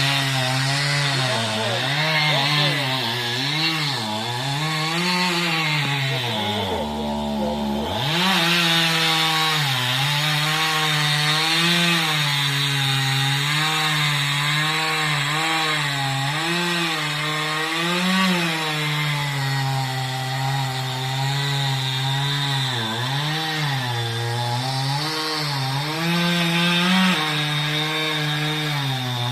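Petrol chainsaw cutting through wood, its engine pitch rising and falling with the load. About seven seconds in it drops briefly to idle, then revs back up and keeps cutting.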